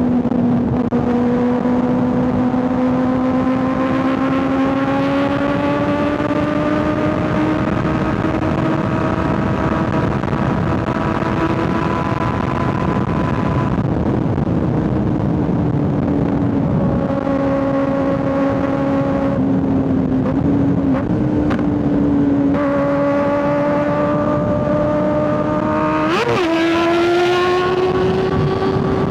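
Kawasaki ZX6R 636 inline-four engine and exhaust heard from on board at highway cruise, the revs climbing slowly and easing off, over steady wind rush. Near the end the revs spike up and drop back sharply, as at a quick throttle blip or gear change.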